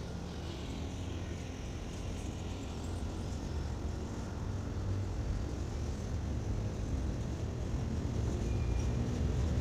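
Low, steady vehicle rumble that grows gradually louder.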